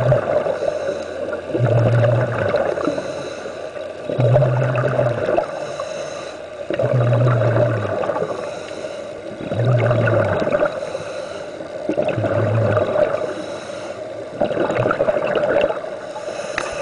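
Scuba regulator breathing heard underwater: the diver's inhalations through the regulator alternating with exhaled bubbles in a regular cycle, a breath about every two and a half seconds.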